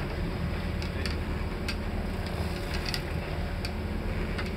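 Irregular clicks from a big-game fishing reel as a hooked tuna is fought on rod and reel, over a steady low rumble.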